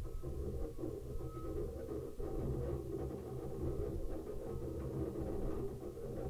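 Electronic noise music from an analog modular synthesizer and electronics: a steady, low rumbling drone.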